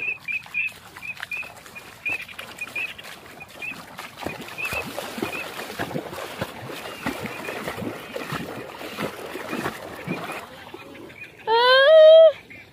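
Legs wading through shallow water, splashing with each stride, under a quick run of high chirping calls early on. Near the end, a loud drawn-out honking duck-like call of under a second, slightly rising in pitch.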